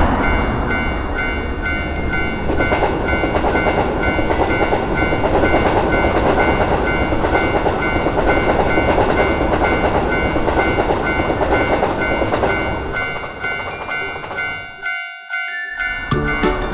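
Japanese level-crossing warning bell ringing in a steady repeating pattern while a train runs past with a steady rumble and wheel clatter. Both fade out about fourteen seconds in.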